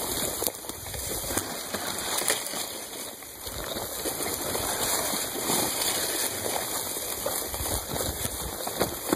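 Mountain bike rolling over rough, overgrown ground through low brush: a steady rushing noise of tyres and vegetation brushing past, with many small knocks and rattles.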